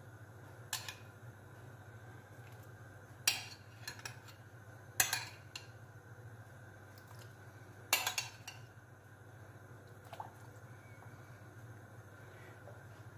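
Metal spoon clinking and scraping against a china plate and the pot as pieces of boiled beef are spooned into borscht, with soft splashes; a few sharp clinks spaced several seconds apart over a low steady hum.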